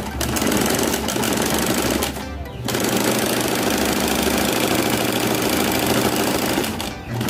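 Electric sewing machine running at speed, stitching a zipper onto fabric, stopping briefly about two seconds in and again near the end.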